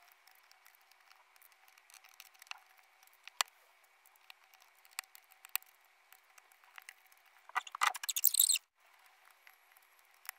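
White keycaps being pressed onto the low-profile switches of a NuPhy Air75 V2 keyboard: scattered sharp plastic clicks, with a short dense clatter of plastic about eight seconds in.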